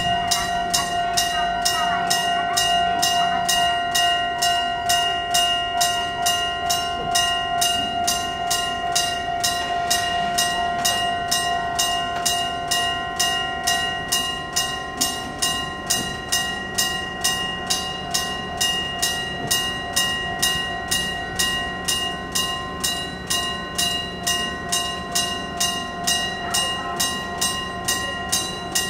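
Old-style electric-bell (電鈴式) railway level-crossing alarm ringing steadily at about three strikes a second, its ringing tones held between strikes. The neighbouring crossing's alarm overlaps it.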